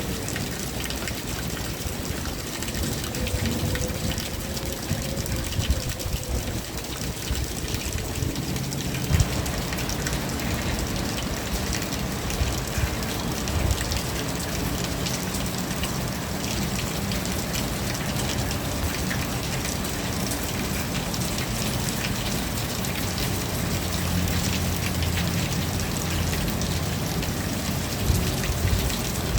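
Rain falling steadily, a constant hiss dotted with individual drops ticking on a surface. It grows fuller and deeper from about nine seconds in.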